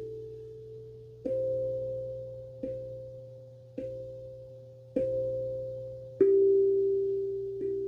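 Guda steel tongue drum struck slowly with sticks, one note about every second and a quarter, each ringing out and fading before the next. The melody moves up a step, repeats that note, then drops to a lower note about six seconds in, which rings loudest.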